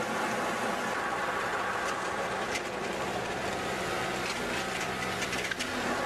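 Tree baler's engine running steadily, with scattered crackles from about two seconds in as a fir tree's branches are pushed through the baling ring.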